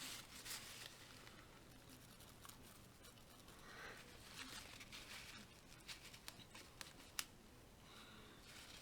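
Faint handling noises on a workbench: small objects being moved and set down, soft rustles and light clicks, with one sharper click about seven seconds in.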